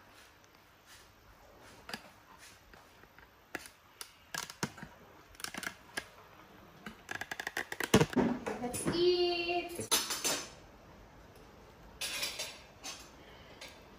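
Scattered clinks and taps of ceramic plates, a soup bowl and metal spoons on a tabletop as the bowl is set down and serving begins. A short stretch of voice comes about eight seconds in, and a quick run of spoon clinks near the end.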